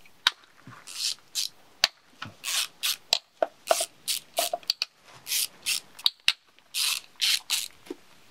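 Ratchet wrench clicking in short rapid bursts, about two a second, as it is swung back and forth to loosen the intake manifold fasteners on a BMW M50B25 engine.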